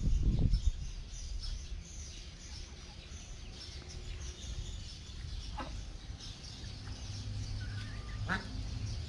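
Ducks and chickens in a pen, with a few short calls from the birds, two of them louder, about five and a half and eight seconds in, over a faint steady high hiss. A brief low rumble in the first second is the loudest sound.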